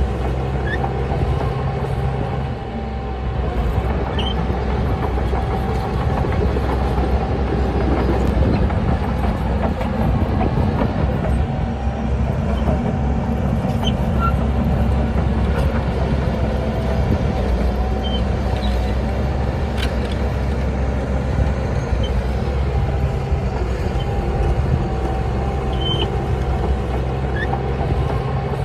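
Heavy earthmoving machine's diesel engine running steadily under load, with a short dip in its note about three seconds in before it picks up again.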